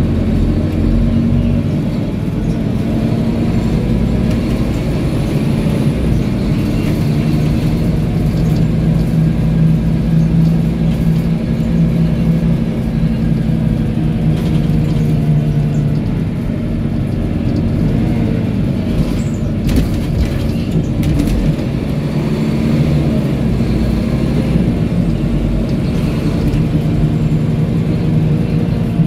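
Scania K230UB city bus driving, heard from inside the passenger cabin: its rear-mounted five-cylinder diesel runs over steady road rumble, the engine pitch rising and falling as the bus speeds up and slows. A few brief knocks come about two-thirds of the way through.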